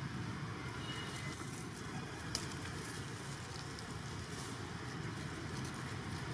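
Steady low rumble of outdoor background noise with faint scattered crackles and one sharp click a little over two seconds in.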